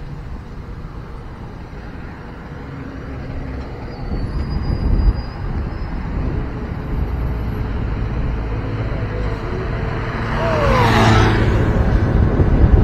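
Low rumble of road traffic that grows louder partway through, with a loud rushing pass near the end whose tone falls in pitch as it goes by.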